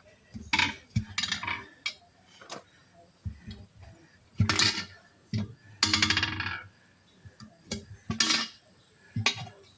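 Metal tools clanking and scraping against a steel wheel rim while a tire is worked off by hand: about six separate sharp clanks, the one about six seconds in longer and rasping.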